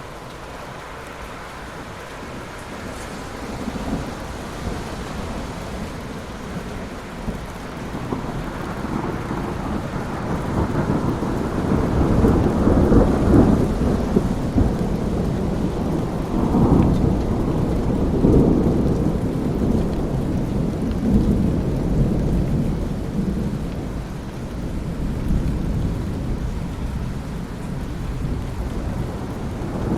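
Thunderstorm: steady rain, with a long low rumble of rolling thunder that swells through the middle and slowly fades again.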